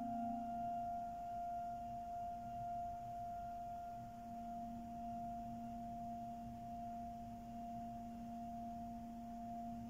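Schuke pipe organ holding one soft sustained chord of two steady, pure-toned notes, a low one and a higher one.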